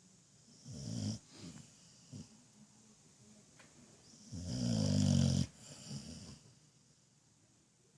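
Pit bull snoring in uneven breaths: a short snore about a second in, a longer, louder snore around the middle, and a softer one just after it.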